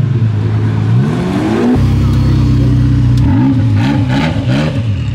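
Supercar engines running: one revs up about a second in, the sound changes abruptly to a steady engine note, and near the end there is a series of quick throttle blips.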